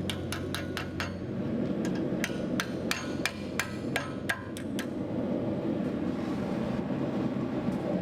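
Hand hammer striking steel on an anvil while forging, a quick run of ringing blows, a pause of about a second, then another run of about three blows a second that stops about four and a half seconds in. A steady low rushing noise continues underneath.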